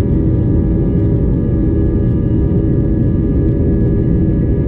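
Boeing 737's CFM56 turbofan engine running at high thrust on the takeoff roll, heard from inside the cabin: a steady, loud rumble with several steady fan tones over it.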